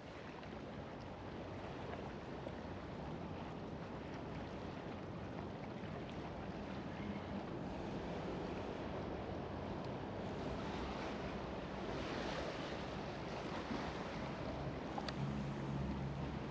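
Steady wash of moving river water and wind noise, with a faint low hum coming in near the end.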